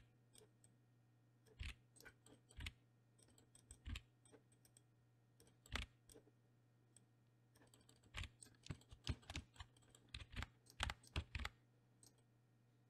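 Faint computer keyboard keystrokes and mouse clicks: a few scattered single clicks, then a quicker run of about a dozen in the second half.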